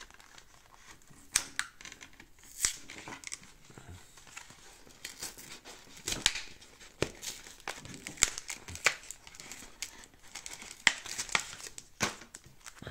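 Foil wrapper of a Pokémon booster pack crinkling and tearing as it is opened and handled, with irregular sharp crackles.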